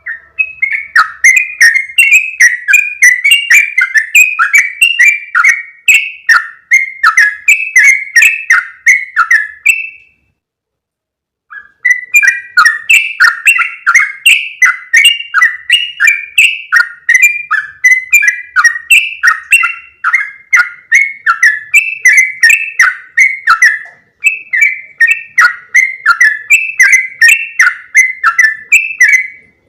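Yellow-vented bulbul (trucukan) call played as a bird lure: a loud, fast, continuous run of short chattering notes. It breaks off for nearly two seconds about a third of the way in, then starts again.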